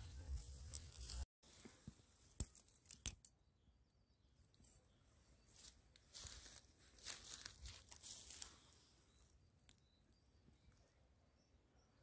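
Low rumble close to the microphone that cuts off suddenly just over a second in. Then two sharp clicks, followed by short irregular rustles and crackles of grass and dry leaves being disturbed near the microphone.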